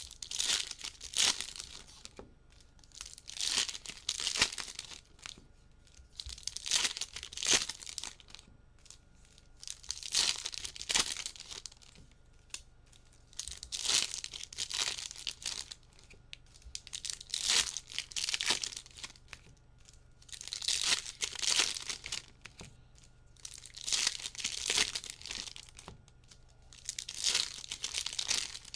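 Plastic trading card pack wrappers crinkling and tearing in about nine short bursts, roughly one every three and a half seconds, as packs are opened.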